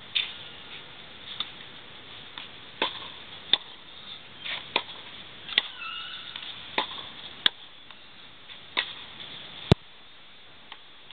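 Tennis balls being hit with a racket and bouncing on a clay court during a practice rally: a string of sharp pops about every half second to a second, the loudest, with a dull thump under it, near the end.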